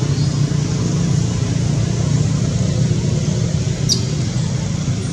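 Steady low rumble, with a brief high chirp about four seconds in.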